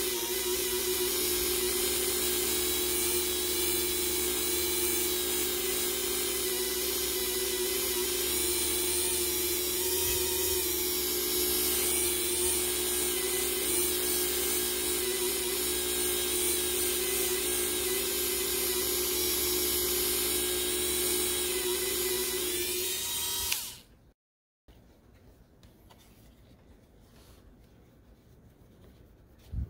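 Hand-held rotary tool spinning a foam polishing pad with finishing compound against a model car body's 2K clear coat: a steady high whine, the final polishing stage. The whine cuts off near the end, and faint rubbing of a polishing cloth on the body follows.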